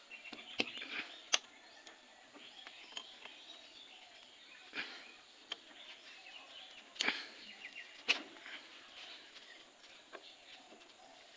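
Open-end spanner working the bolts on a Maschio rotavator's gearbox cover, giving several scattered sharp metallic clicks and clinks as the bolts are loosened. Faint bird chirps sound behind.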